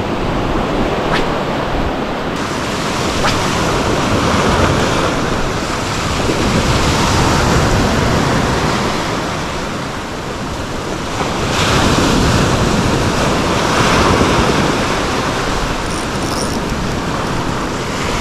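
Sea surf breaking and washing over a flat rock shelf at the shoreline, a steady rushing that swells and eases every few seconds, dipping briefly about halfway through.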